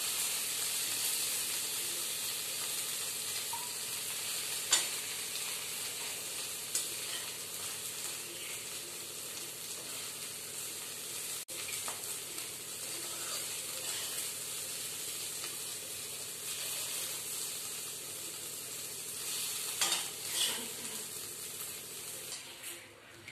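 Bitter gourd pickle still sizzling in a hot kadhai just after the gas is turned off, with a steady hiss and a few sharp scrapes of a metal spatula as it is scooped onto a plate. The sizzle dies down near the end.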